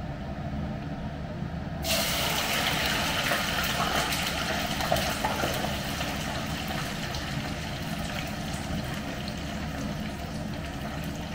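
Fries going into hot oil in a frying pan and sizzling, a loud hiss that starts suddenly about two seconds in and keeps on steadily, over a steady low hum.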